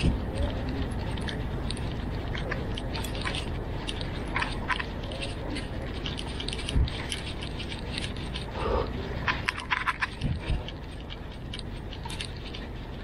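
Scattered light clicks and rattles, thickest about four seconds in and again near ten seconds, over a steady low background rumble.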